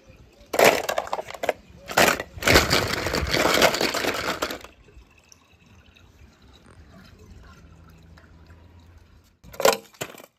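Water splashing in several loud bursts over the first few seconds as toys drop into a pool, with two short splashes near the end.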